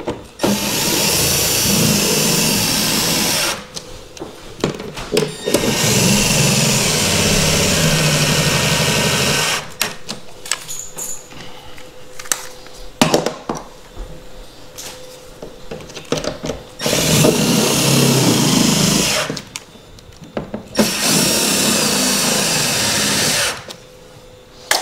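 Cordless drill running in four bursts of a few seconds each, driving the mounting screws of an in-wall speaker, with knocks and handling between the bursts.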